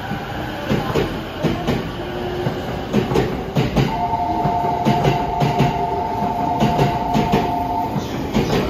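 JR East E231 series 0 electric commuter train pulling out and sounding its horn: one steady two-note blast lasting about four seconds, starting a little before halfway through. Under it, the wheels clatter over rail joints, the knocks coming faster as the train gathers speed.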